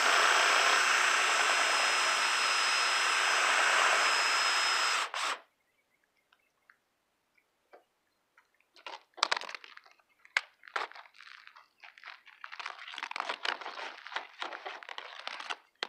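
Power drill spinning a rotary brush through the dryer vent duct, running steadily for about five seconds and then stopping. Later come intermittent scraping and rustling.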